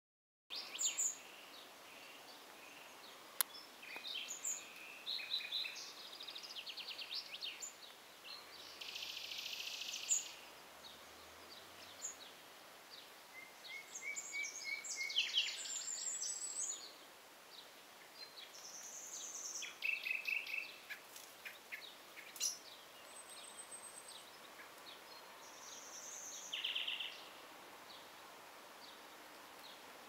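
Several songbirds singing and calling in the trees: bursts of fast trills, short chirps and high whistled notes coming and going throughout. A single sharp click sounds about three and a half seconds in.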